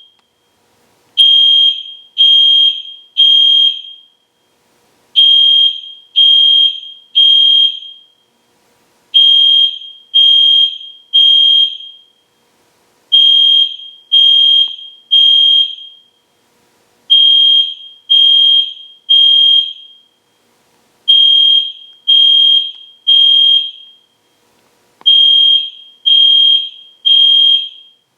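EST Genesis fire alarm horn sounding loudly in the temporal-three evacuation pattern: three short high-pitched blasts, then a pause, repeating every four seconds. Each blast trails off with a short room echo.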